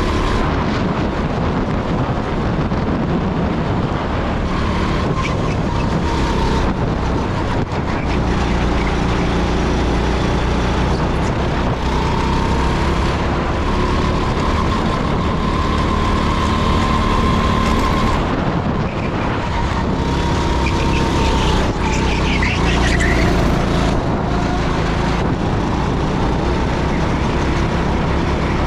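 Rental go-kart heard from the driver's seat while lapping at speed: its engine runs loud and steady, the pitch dipping and rising a little through the corners, over a constant low rumble.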